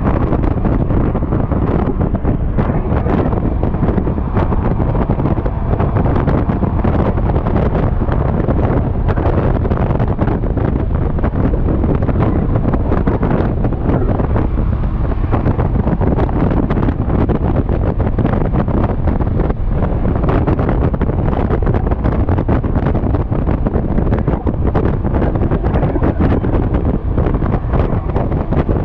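Wind buffeting a GoPro's microphone on a moving Yamaha XMAX scooter, a loud, steady rumble that hides most of the scooter's engine and road noise.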